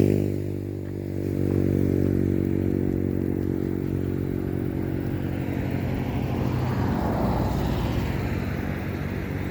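Motor vehicle engine running steadily at low revs, its pitch dropping and settling in the first second.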